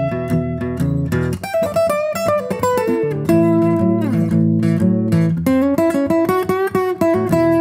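Background music: plucked guitar playing a melody over a bass line.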